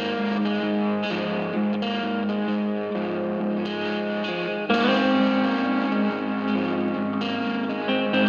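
Background music led by guitar, with held notes that change every second or so; it gets louder about halfway through.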